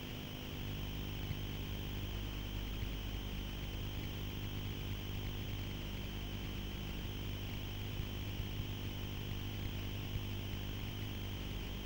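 A steady low hum with a constant hiss over it, unchanging throughout, and a couple of faint knocks about eight and ten seconds in.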